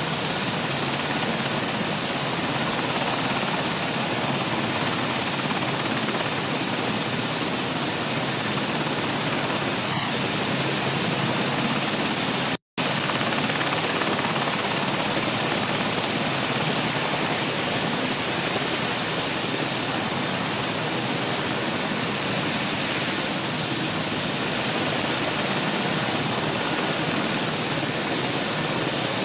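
Aircraft turbine engines running on an airfield: a steady rushing noise with a constant high-pitched whine, cut off for a split second about 13 seconds in.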